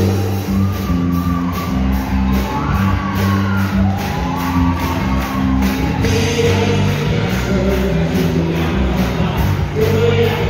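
Upbeat song with a sung melody over held bass notes and a steady beat, with a crowd shouting and cheering in a large hall.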